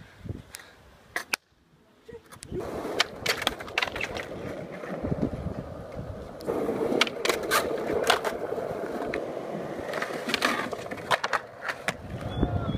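Skateboard wheels rolling on smooth concrete, with many sharp clacks of the board hitting the ground as tricks are popped and landed.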